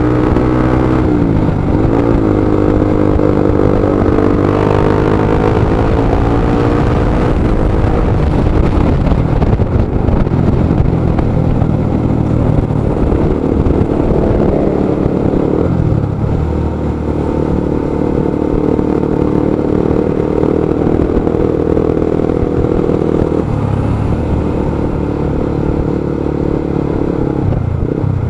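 Motorcycle engine running in slow stop-and-go traffic, its pitch dipping and rising several times as the bike eases off and pulls away again.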